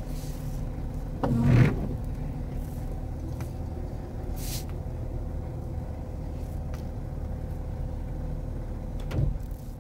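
Steady low engine and road rumble heard from inside a car, with a few faint clicks and a brief voice-like sound about a second and a half in.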